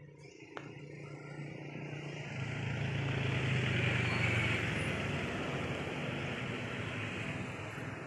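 A motor vehicle passing by: its engine and tyre noise swells over the first few seconds, peaks about halfway through, then slowly fades.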